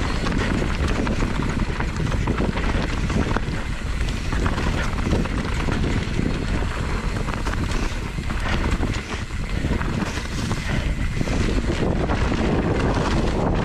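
Steady rushing wind buffeting the microphone, with no pauses or distinct knocks.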